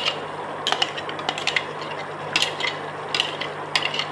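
A metal spoon clinking and scraping against a steel mixer-grinder jar while scooping thick ground masala paste into a steel pan: scattered light clinks, irregularly spaced, over a low steady hum.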